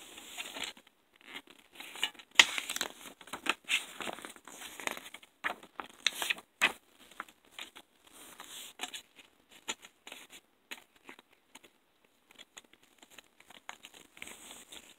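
A paper CD booklet and a plastic jewel case being handled: irregular rustling, scraping and sharp clicks, busiest in the first half and sparser later.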